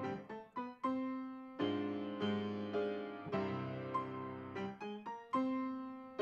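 Piano playing slow chords, each struck and left to fade, with a few quick short notes in the first second.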